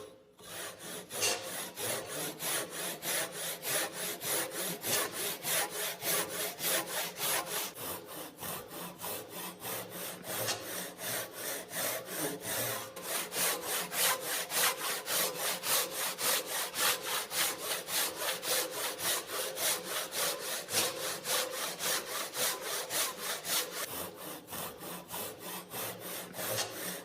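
Japanese hand saw (te-nokogiri, 300 mm blade) cutting through wood in quick, even back-and-forth strokes.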